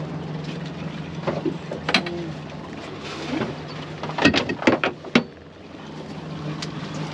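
Fishing boat's engine idling with a steady low hum. A few knocks and clatters on the boat, loudest in a quick cluster about four to five seconds in.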